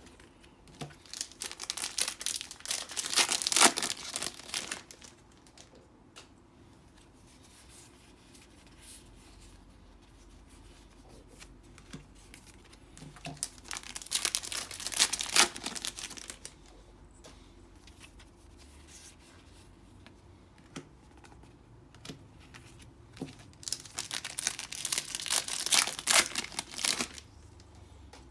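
Foil trading-card booster packs being torn open and crinkled, three times in a row, each opening a few seconds of ripping and crackling wrapper.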